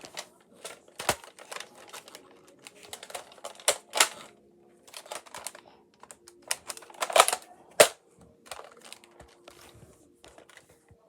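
Hand reloading of a toy Nerf-style hunting rifle: irregular plastic clicks and rattles, with a few sharper snaps about a second in, four seconds in, and twice around seven to eight seconds in.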